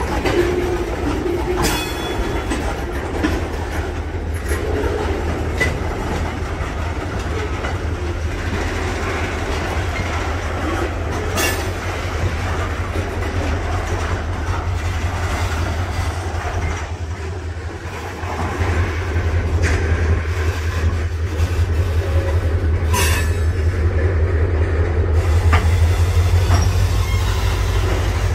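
Freight tank cars rolling slowly past in a yard switching move, wheels clicking over rail joints, with a few sharp metal squeals and clanks. Under it a diesel locomotive's engine drones steadily, growing louder about two-thirds of the way through as the locomotive draws near.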